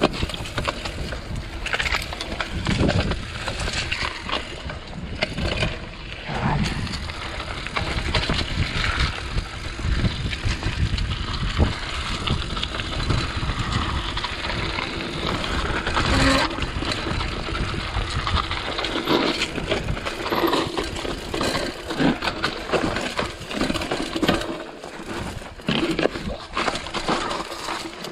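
Mountain bike ridden over a dry, stony dirt singletrack: tyres crunching on loose dirt and rocks, with the bike's parts rattling and clattering over the bumps.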